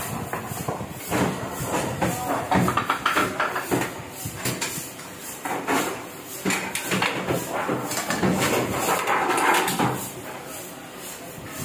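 Paper sheets and a thin metal printing plate being handled at a Heidelberg offset press, with irregular rustling, rattling and clattering.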